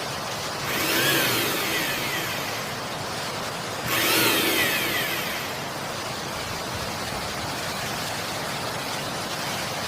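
Horror-style sound effects: a steady hiss with two swells about three seconds apart, each carrying falling, screech-like sweeps in pitch.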